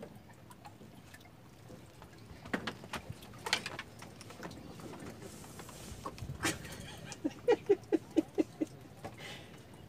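Clicks and knocks of a fishing rod and spinning reel being handled, then a quick run of about seven short, pitched squeaks near the end.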